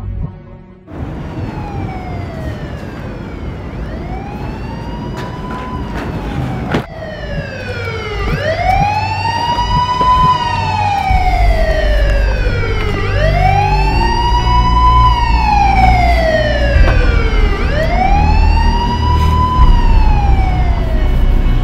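Emergency vehicle siren wailing: a slow rise and fall repeating about every four to five seconds and growing louder. A low rumble joins it about halfway through.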